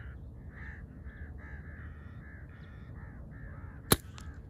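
A bird calling over and over, about four calls a second. Near the end comes a single sharp gunshot, the loudest sound, with a fainter click just after it.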